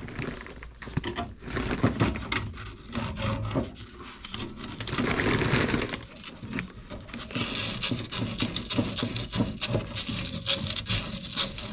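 Sanding cloth scrubbed back and forth over the spigot's copper end, scraping off old solder to clean the metal before it is fluxed and soldered. Quick, uneven scratching strokes, harder in stretches around the middle and toward the end.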